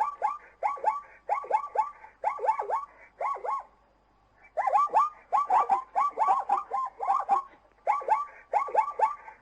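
Zebra calling: short yelping barks in quick runs of two to four, with a pause of about a second around four seconds in.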